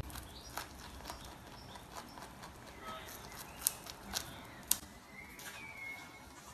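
Lop-eared rabbit nibbling a broccoli floret held in a hand: faint crunching, with a few sharp crisp crunches about half a second apart a little past the middle.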